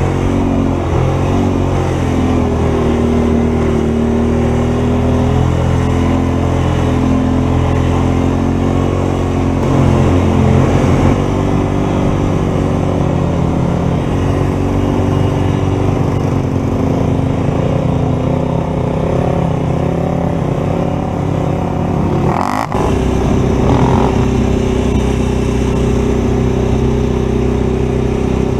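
A vehicle engine running continuously, its pitch drifting up and down as the revs change. About three-quarters of the way through the sound changes abruptly and settles at a new, steady pitch.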